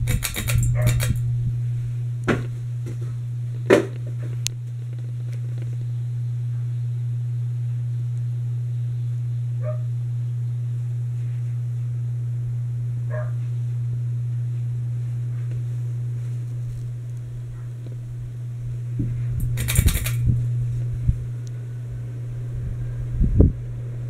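Litex Vortex hugger ceiling fan running steadily, its motor giving a steady low hum. There are a few sharp clicks and knocks in the first four seconds, and another cluster about twenty seconds in.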